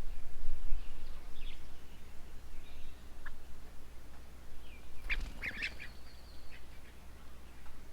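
Birds calling at a garden bird table: scattered short calls, with a quick cluster of several harsh notes about five seconds in, over a steady low rumble.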